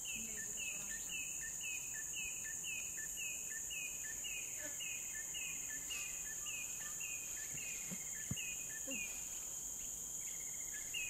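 Tropical rainforest insect chorus: a steady high-pitched drone under a short chirp repeated evenly, about two or three times a second.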